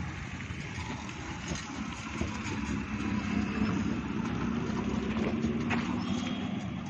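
A steady low engine hum, like a vehicle idling, with a few faint ticks.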